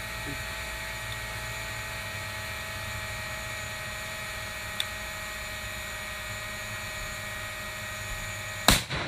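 DJI Mavic Pro drone hovering, its propellers giving a steady whine heard through the drone's own microphone. Near the end a single loud rifle shot cuts through, the loudest sound.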